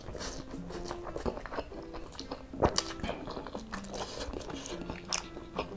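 Close-miked eating: noodles slurped in and then chewed with wet mouth clicks and crunches, the sharpest about two and a half seconds in. Soft background music plays underneath.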